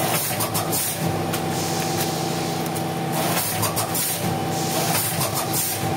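A powder packing machine running: a steady hum with several held tones, broken by short hissing bursts every second or so.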